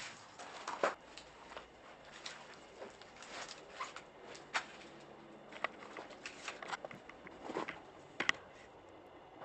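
Footsteps crunching and scuffing over debris on a rubble-strewn floor: irregular crackles and clicks, the sharpest about a second in and near the end.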